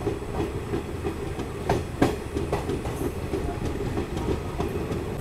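DEMU train pulling out of the station, heard from the open coach doorway: a steady rumble with several uneven clacks of the wheels over rail joints, the loudest about two seconds in.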